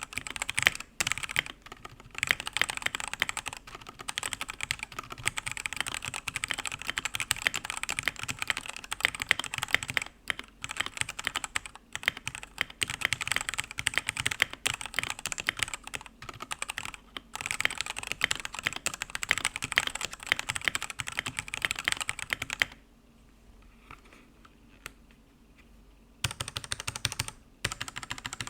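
Redragon UCAL K673 Pro mechanical keyboard being typed on fast, a dense run of key clacks. The typing stops for about three seconds near the end, leaving only a few faint taps, then starts again.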